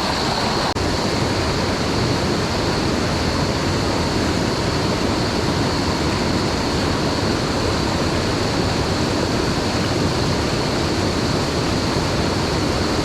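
Mountain stream rushing over rocks and small waterfalls, a steady, loud wash of water.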